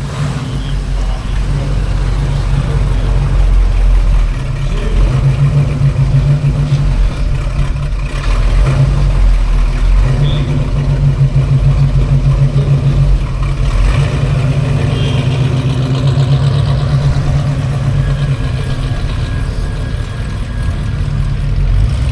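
Car engines running and idling with a steady low rumble.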